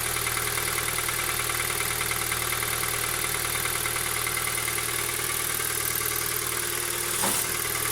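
A 2017 Kia Ceed's 1.6-litre petrol engine idling with the bonnet open, a light metallic knock repeating steadily in its running, heard shortly after a cold start. The owner believes such a knock should not be there, and the dealer found no cause.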